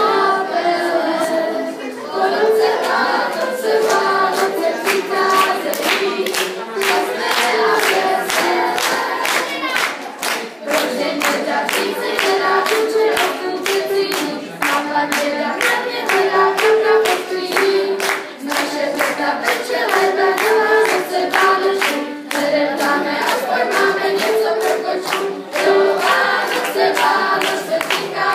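A group of schoolchildren singing a Christmas song together, with hand clapping keeping a steady beat throughout.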